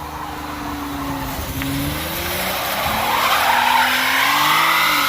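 Mazda MPV engine held at high revs with its drive tires spinning on pavement in a burnout, the tire squeal building and growing louder from about halfway in.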